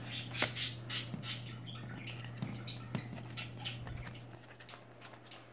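Stiff picture cards being picked up off a wooden table and shuffled in the hands: a run of light clicks and scraping rustles, thinning out after about three seconds. A steady low hum sits under it.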